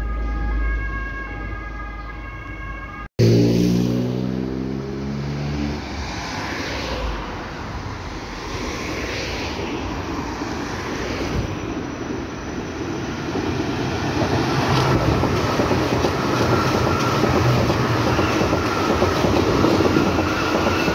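Berlin U-Bahn train on line U2 approaching and running past at close range. Its rumble of wheels on rail swells over the second half, with a steady electric motor whine, and is loudest near the end. Road traffic runs underneath.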